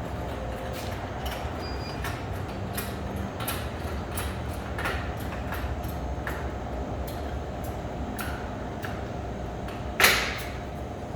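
Scattered clicks and knocks of snack packs and vending-machine parts being handled during restocking, over a steady low hum, with one loud bang near the end.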